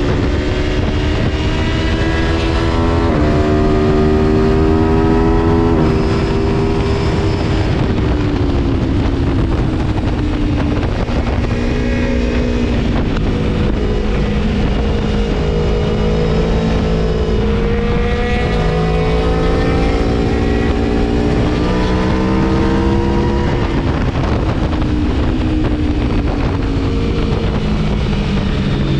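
Gabro Stage 3-tuned Aprilia Tuono V4 engine revving through the gears on a ride. Its pitch climbs, steps at gear changes about three and six seconds in, falls as the bike slows, then climbs again and drops back near the end, over a steady low rush.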